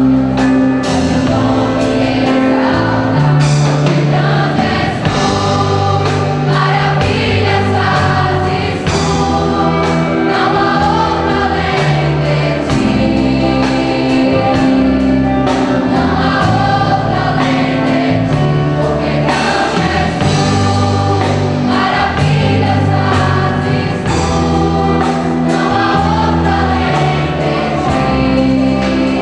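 A choir singing a gospel song over instrumental accompaniment with sustained bass notes and a steady beat.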